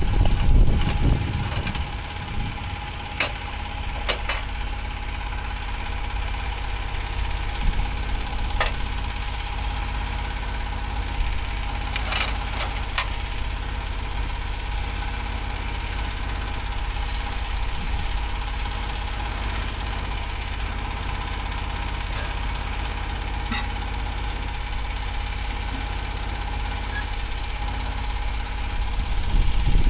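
An engine running steadily at a constant speed, with a few sharp clicks or knocks scattered through. It is louder for a moment at the start and again at the very end.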